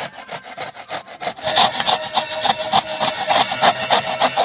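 A whole peeled coconut grated on the fine side of a flat metal hand grater: quick, even rasping strokes that get louder about a second and a half in.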